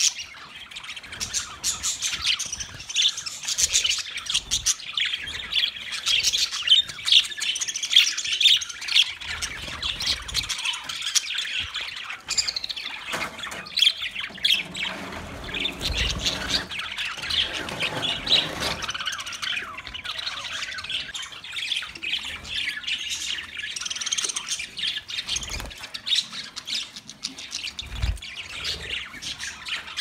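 A flock of budgerigars chattering: a dense, continuous mix of high chirps, warbles and squawks from many birds at once. There are a couple of short low thumps, one about halfway through and one near the end.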